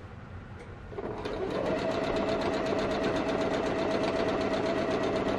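Janome Memory Craft 6700P sewing machine starting up about a second in and running fast and steady, its needle making rapid, evenly spaced strokes during free-motion quilting through the layers of a quilt.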